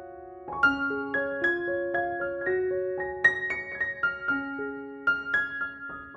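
Background music: a gentle solo piano melody of single notes, slightly quieter near the start and with a brief pause just before a new phrase about half a second in.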